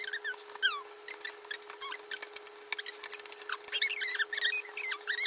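African grey parrot giving soft, squeaky chirps and whistles, some falling in pitch, while it works plastic keycaps loose from a computer keyboard with its beak, with many light plastic clicks.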